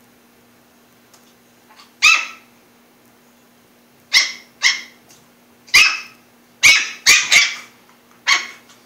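A small puppy yapping: about eight short, high-pitched barks, irregularly spaced and some in quick pairs. These are play barks aimed at a big dog to get it to play.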